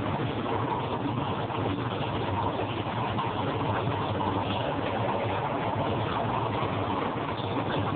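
Speed bag being punched without a break, the bag rattling rapidly and continuously against its rebound board.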